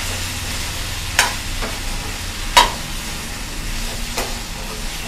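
Metal spatula scraping and knocking against a metal kadai while boiled potato cubes are stirred into the vegetables, over a steady sizzle of frying. There are a few sharp knocks, the loudest about halfway through.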